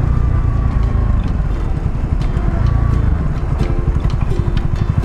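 Honda CB125R's single-cylinder engine running under way, a steady low exhaust note made of rapid even pulses.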